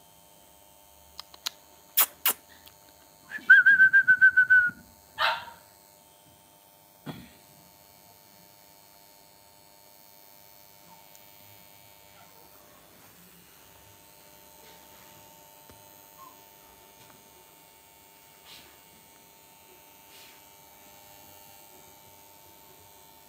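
Lhasa Apso dog at play: a few sharp clicks, then a high, steady squeal lasting about a second, then one short bark.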